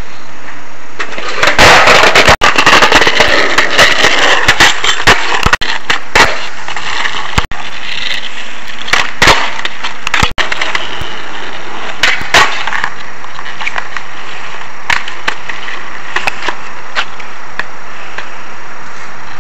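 Skateboard wheels rolling over asphalt and then concrete sidewalk, louder in the first few seconds and lighter later, with many sharp clacks and knocks from the board hitting the ground.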